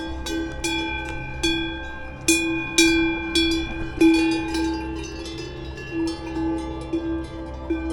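Cowbells clanging at irregular intervals, each strike ringing on, with several strikes close together at times.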